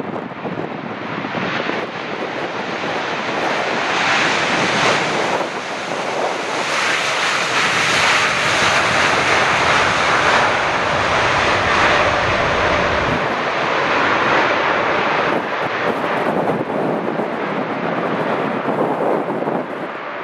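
Boeing 747-8F's four GEnx jet engines during landing rollout on a flooded runway, with reverse thrust kicking up spray. The engine noise builds over the first few seconds, stays at its loudest through the middle, and eases off near the end.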